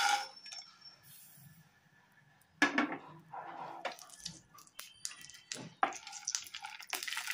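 Chopped cashews and almonds tipped from a plate into ghee in a nonstick pan, then a knock and scattered clicks and scrapes as a wooden spatula stirs them, with frying sizzle building near the end.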